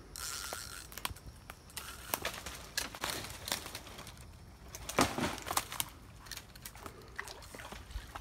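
Irregular splashing and crackling of water as an American alligator thrashes in the shallows with a snatched hooked fish.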